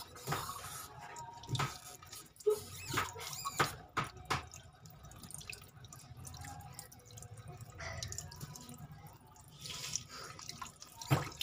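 Water dripping at a sink: irregular plinks and small clicks, with soft handling noises in between.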